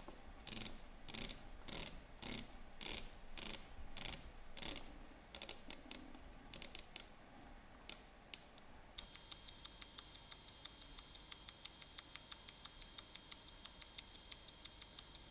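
Sharp clicks in short bursts, about two a second, for the first nine seconds. Then, about nine seconds in, comes the steady even ticking of the Citizen caliber 8200 movement picked up by a timegrapher, with a thin steady high tone behind it.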